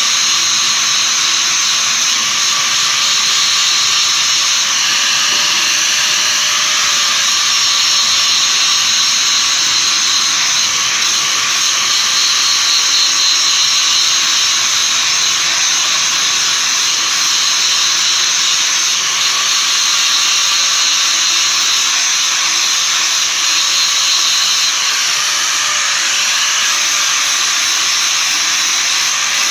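A metal blade being ground on a grinder, a steady high hissing grind that swells and eases slightly without a break.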